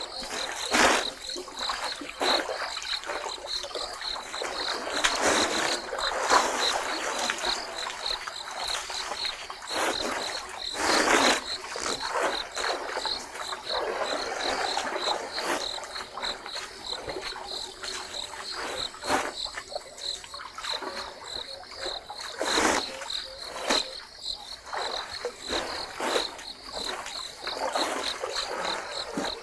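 African elephants drinking at a waterhole: irregular sloshing and splashing of water, swelling in surges every few seconds. Behind it an insect keeps up a steady, fast, high pulsing trill.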